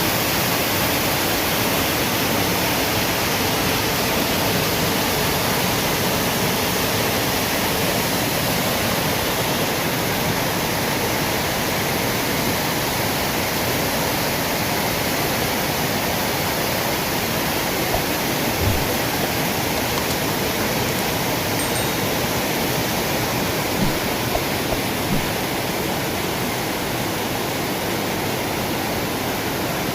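Waterfall: a steady, loud rush of falling water, with a few faint knocks near the middle and later on.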